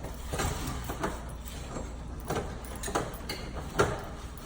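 Irregular knocks and scrapes of heavy electrical wire being handled and worked against a metal electrical panel, with a steady low hum underneath.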